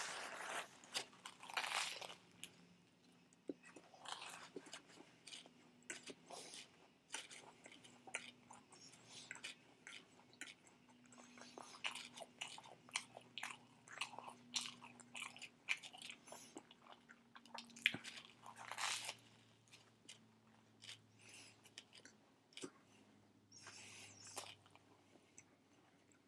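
Close-up chewing of a toasted bacon and lettuce sandwich: irregular crunches of the toast and wet chewing, with bites now and then.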